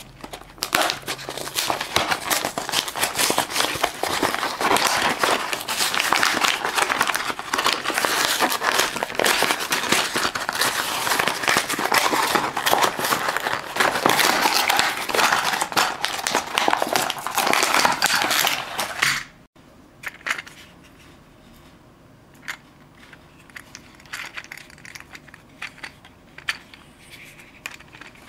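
Plastic blister packaging crinkling and crackling as it is worked loose and pulled off its cardboard backing. The crinkling is loud and continuous, then stops abruptly about two-thirds of the way through. Only quiet scattered clicks of the plastic toy being handled follow.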